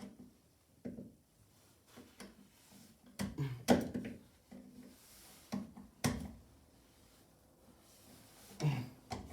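Scattered clicks and knocks of a screwdriver and stiff wire being handled at an electrical outlet, as a wire is bent and worked around a screw terminal. The loudest knocks come about three to four seconds in, with more near the end.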